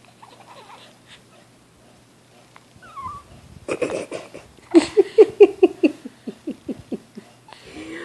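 Young baby laughing in a run of short, breathy huffs, about four a second, starting about halfway through after a brief rustle.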